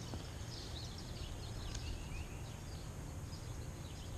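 Small birds chirping and singing again and again, with short high notes and quick falling whistles, over a steady low background rumble.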